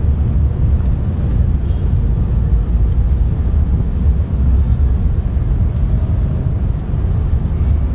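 Steady low outdoor rumble, with a thin, high, steady trill of night insects running over it.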